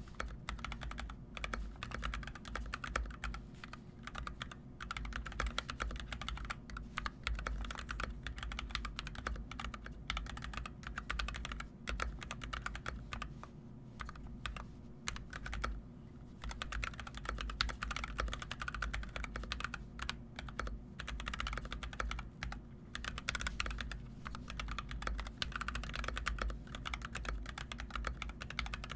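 Fast, continuous typing on an NK65 Entry mechanical keyboard with EV-01 switches and PBT keycaps: a dense run of key clacks with a few brief lulls, over a steady low hum.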